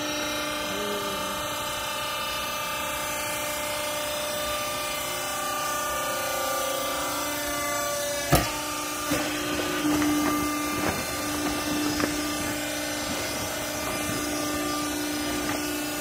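A twin-chamber hydraulic clothing baler's electric motor and hydraulic pump run with a steady hum. About eight seconds in there is one sharp metallic clank, followed over the next few seconds by a few lighter knocks.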